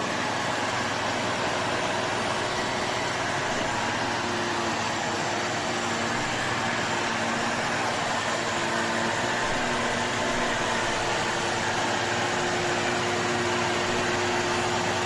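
VOLUEX Jimmy JV35 handheld mite vacuum cleaner running steadily, a hiss of rushing air over a motor hum, cutting off suddenly at the end.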